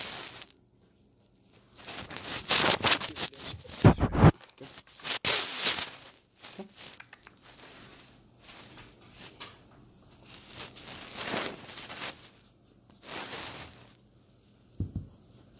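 Bloodhound chewing popcorn: a run of irregular crisp crunches. There are two dull thumps, one about four seconds in and one near the end.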